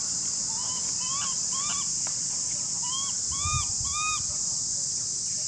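A steady high drone of insects with about six short animal calls, each rising and falling in pitch, coming in two groups of three. A soft low thump comes partway through.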